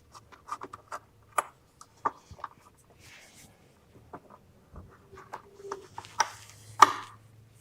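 Scattered small clicks and light knocks of hardware being handled and set in place while fitting a motorcycle luggage rack: spacers, washers and screws. The sharpest click comes near the end, over a faint steady low hum.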